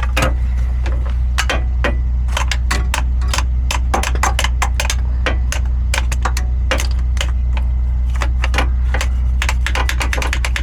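Irregular metallic clicks and taps of hand tools on metal, coming faster near the end, over a steady low hum.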